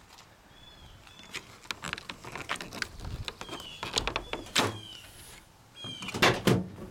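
Clicks and knocks from a pickup's tailgate and fiberglass camper shell being handled, with a louder clunk about six seconds in.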